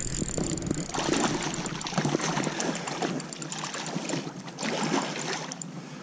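A small hooked pike splashing and thrashing at the water's surface close to the bank, with many scattered short clicks and taps throughout.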